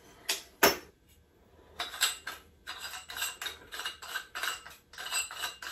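Small metal faucet mounting parts clinking and rattling as they are handled and worked together by hand. Two sharp clicks near the start, then a run of quick, light, irregular clinks from about two seconds in.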